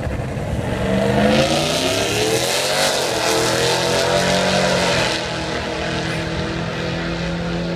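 LSX V8 in a Willys Jeep launching hard down a drag strip. The engine's pitch climbs steeply, drops sharply at an upshift about three seconds in, then holds and fades after about five seconds as the Jeep pulls away.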